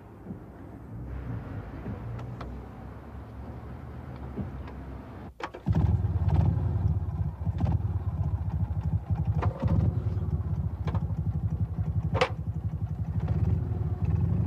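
Single-cylinder BMW R24 motorcycle engine being kick-started. It catches about five and a half seconds in and then runs loudly with a steady rapid beat, with a few sharp louder moments.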